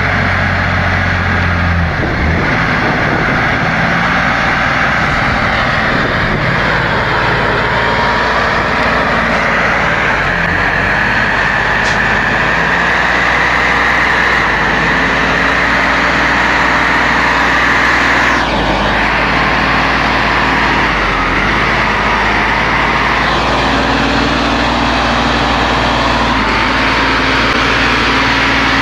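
Old MAN diesel lorry's engine running loud and steady under load as the truck pushes through deep mud, its pitch shifting a few times.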